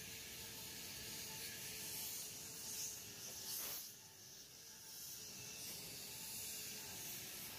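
Shipyard ambience: a steady high hiss with a faint wavering machine hum beneath it, swelling briefly about three and a half seconds in.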